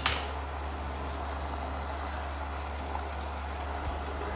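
Steady low kitchen hum with a faint hiss, after a short knock right at the start.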